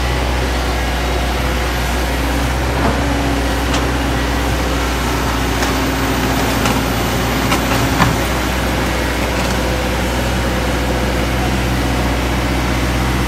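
Heavy truck engine running steadily at low revs, with a few short knocks about halfway through.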